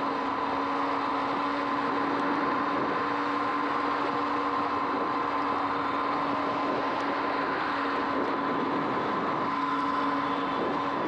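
Sur-Ron X electric dirt bike cruising at a steady speed: a steady electric motor whine over a constant rush of tyre and wind noise.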